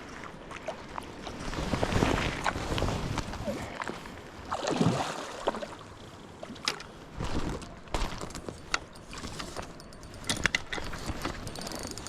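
Water splashing and sloshing in uneven surges, with scattered sharp clicks.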